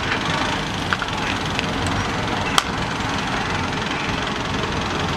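Steady vehicle engine and road noise with a few short sharp clicks or knocks; the loudest comes about two and a half seconds in.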